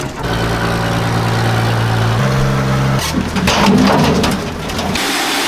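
A machine motor running steadily, its pitch shifting a step about two seconds in, followed by a couple of seconds of rough, noisy machine sound.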